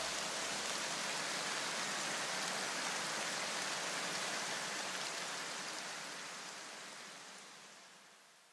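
A steady, even hiss of noise with no tone or rhythm in it, fading away over the last three seconds to near silence.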